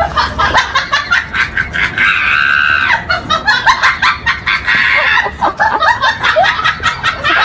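A person screaming and laughing in fast, choppy peals, with a held high shriek about two seconds in.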